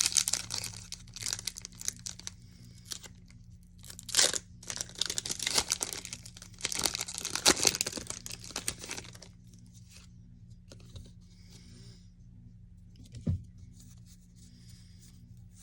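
Foil Pokémon booster pack wrapper being torn open and crinkled, with sharp rips about four seconds in and again near the middle. After about nine seconds it drops to faint rustling as the cards are handled.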